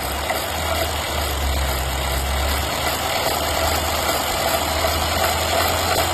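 Mercedes-Benz M276/M278 petrol engine running steadily. Its deep low hum eases about two and a half seconds in as a mid-pitched hum grows. The engine has an abnormal noise that is being diagnosed.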